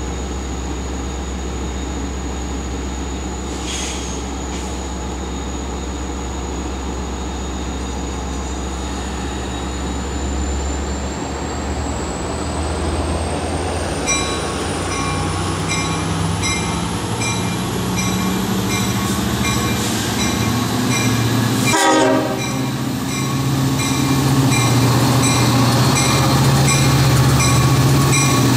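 EMD DE30AC diesel-electric locomotive approaching with four coaches, its engine and wheels growing louder as it draws near, with its horn sounding. From about halfway a high ding repeats about twice a second over the train noise.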